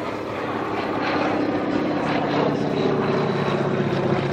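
Aerobatic biplane's piston engine and propeller running steadily in flight, getting a little louder about a second in.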